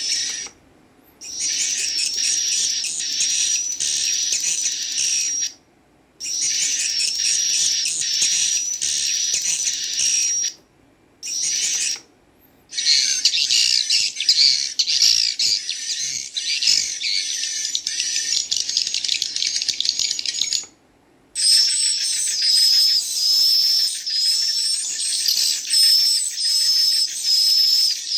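Recorded swiftlet chick calls played back through a device speaker: dense, fast, high chirping ('ci ci ci, cut cut cut') with adult swiftlet calls mixed in. It comes in several runs of a few seconds each, broken by short silences.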